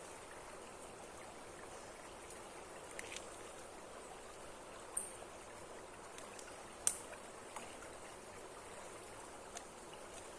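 Steady rush of flowing water, with a few short sharp clicks on top, the loudest about seven seconds in.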